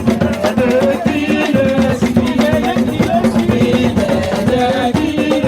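Upbeat live band music with drums and hand percussion keeping a steady, lively rhythm under a pitched melody, accompanying a French gospel hymn.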